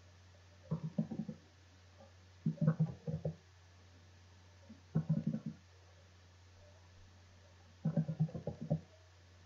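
Computer keyboard being typed on in four short bursts of quick, dull key clicks, entering numbers, over a steady low electrical hum.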